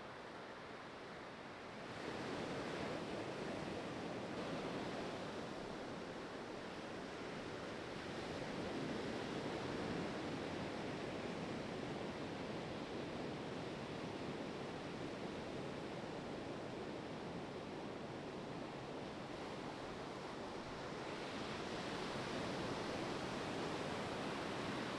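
Ocean surf on a beach break: a steady wash of breaking waves, swelling about two seconds in and again near the end.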